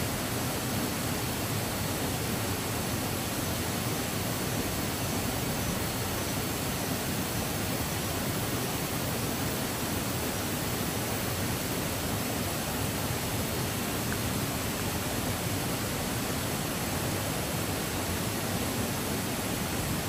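Steady rushing of a waterfall: an even, unbroken noise that holds the same level throughout.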